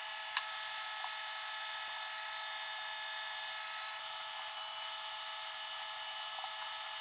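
Faint steady whine made of several constant high tones, with a single light click about half a second in.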